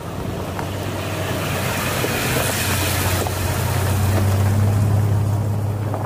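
An SUV's engine drone with a rushing noise over it, growing louder as the vehicle passes overhead, then easing a little near the end.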